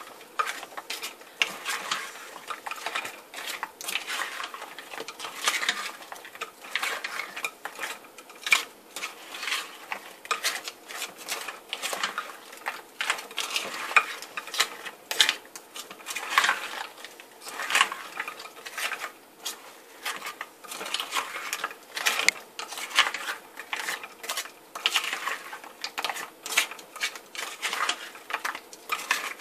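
Frozen goat milk cubes being stirred in a glass bowl, knocking and scraping against the glass in irregular clinks several times a second, as lye is stirred into them for soap.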